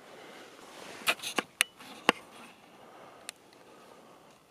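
Footsteps through dry grass and brush, with a cluster of sharp cracks and crackles of twigs and branches about a second to two seconds in and one more snap a little past three seconds.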